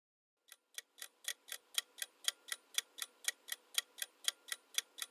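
Clock-tick sound effect ticking evenly at about four ticks a second, starting about half a second in: a quiz countdown timer running down the time to answer.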